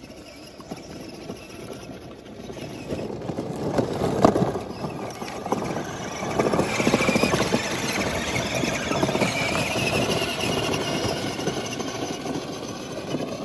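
Battery-powered ride-on toy UTV driving over dry ground: its electric drive motors and gearboxes whine while the wheels crackle over dry grass and twigs. The sound builds over the first few seconds, and a higher whine rises and falls from about halfway.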